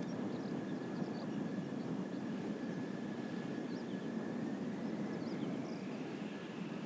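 Kawasaki T-4 jet trainers' turbofan engines, heard from the ground as a steady rumble with a whine. A second, higher whine comes in and rises in pitch about five seconds in, and there are faint high chirps over it.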